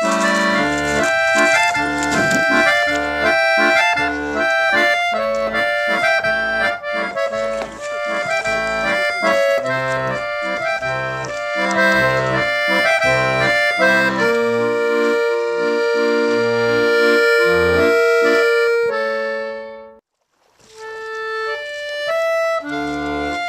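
Instrumental background music: held melody notes over an alternating bass-and-chord rhythm. It breaks off for a moment near the end, then starts again.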